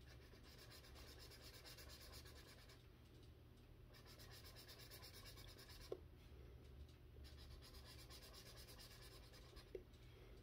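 Faint scratching of a felt-tip marker stroked rapidly back and forth over a colouring-book page, filling in an area of colour. A brief tick sounds about six seconds in and again near the end.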